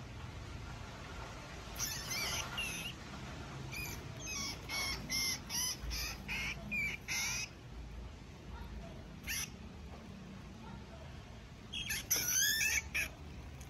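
A white rodent squealing in distress as a ball python constricts it: short, high, wavering squeaks, a quick run of them about four seconds in and a louder cluster near the end.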